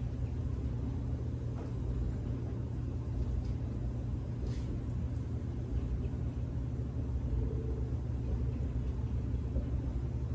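Steady low rumble of a running motor, unchanging throughout, with a faint click about four and a half seconds in.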